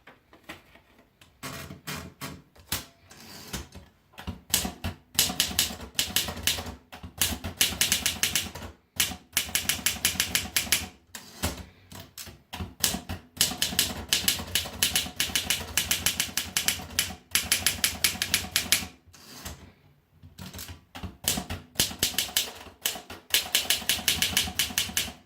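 Torpedo typewriter being typed on: quick runs of sharp key strikes with short pauses between them.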